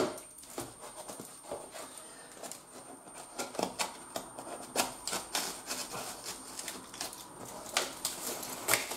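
Cardboard parcel being opened by hand: irregular scraping, crackling and rustling of cardboard, with a few sharper clicks.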